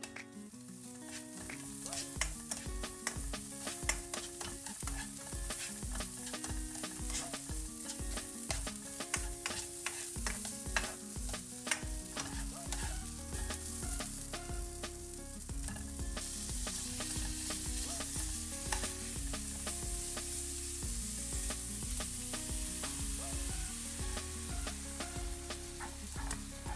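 Minced garlic and bird's eye chilies sizzling in hot oil in a nonstick wok, with a spatula stirring and scraping in many small clicks. The sizzle gets louder about halfway through.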